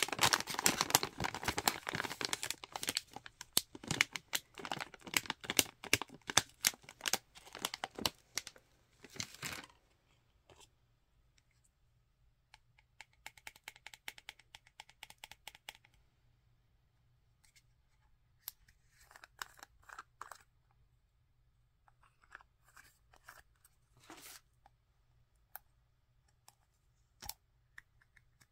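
Crinkling and tearing of a plastic packaging pouch being handled and opened, dense for the first ten seconds. Then quieter clusters of light taps and scratches as long fingernails handle a plastic cosmetic jar, with a sharper click near the end as its lid is flipped open.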